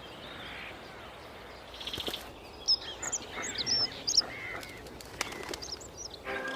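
Wild birds chirping in short, sharp, sweeping notes, with a quick trill about two seconds in and a few more chirps near the end, over a steady faint hiss.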